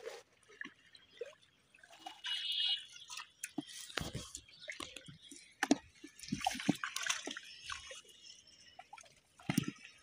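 Irregular wet splashes, drips and slaps in a plastic bucket as a hand stirs through freshly caught baila, small goby fish, flapping in a little water.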